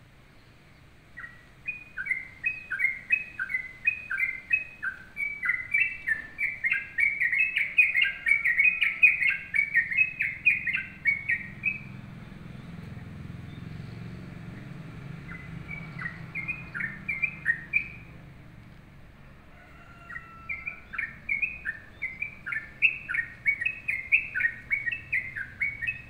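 Caged yellow-vented bulbul singing lustily in long runs of quick, repeated chirping notes. It breaks off for a few seconds in the middle, then starts again.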